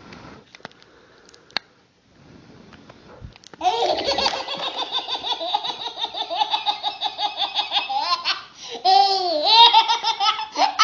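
A baby laughing hard: quiet at first apart from a couple of small clicks, then from about a third of the way in a long run of quick, high-pitched laughs, ending in a few longer rising-and-falling squeals of laughter.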